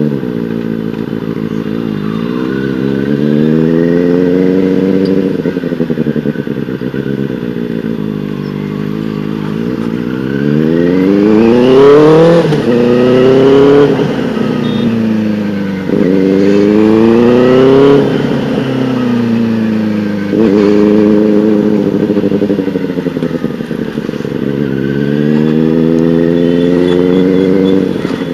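Benelli TNT 600i's inline-four engine, heard through a loud IXIL aftermarket exhaust, riding through traffic. The revs climb and fall several times, with short drops at the gear changes, and it is loudest under acceleration about twelve and eighteen seconds in.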